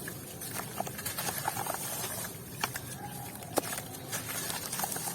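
White cement chunks with grains being crunched and crumbled, with wet parts: irregular crisp crackles and clicks, a few sharper snaps among them.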